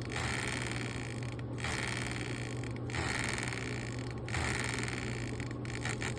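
Arduino-controlled electric fan spinning, with a steady motor hum under a rasping, flapping noise like a card in bike spokes. The rasp drops out briefly about every second and a half as the speed is varied, and near the end it turns into fast clicking.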